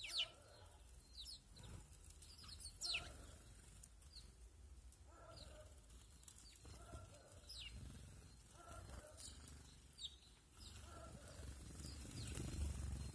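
Small garden birds, tits and sparrows, calling: short, high calls that slide downward, one every second or so, with some lower chirps among them. A faint low rumble lies underneath and grows stronger near the end.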